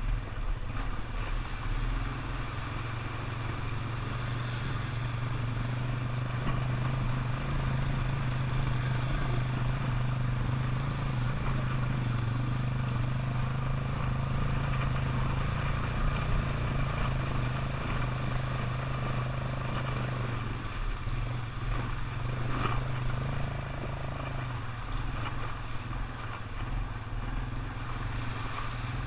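ATV engine running steadily under way, its note easing off and changing about twenty seconds in.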